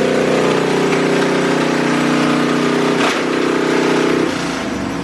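1980 Harley-Davidson Shovelhead 80-inch V-twin engine running steadily at raised speed, with a single sharp crack about three seconds in; about four seconds in the engine note drops off.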